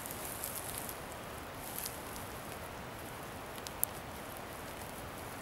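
A steady hiss with a few light crackles and one sharp tick about four seconds in, as a hand brushes through dry conifer needle litter on the forest floor.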